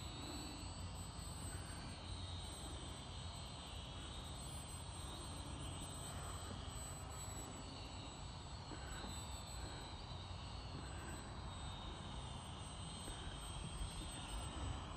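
The 1806-size 2300KV brushless electric motor and propeller of a small RC model biplane flying overhead: a faint high whine that drifts up and down in pitch as the plane moves and the throttle changes.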